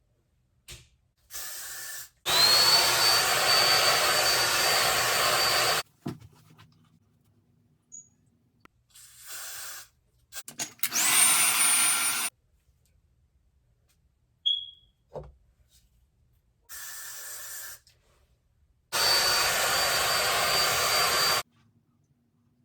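Handheld hair dryer switched on and off in several bursts, its motor whining up to speed at the start of each loud burst, with shorter, quieter bursts in between.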